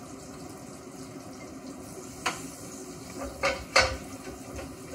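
Metal tongs clinking against a skillet three times, once a little past two seconds in and twice close together about a second later, over a soft steady sizzle of garlic and chili pepper frying in olive oil with anchovy.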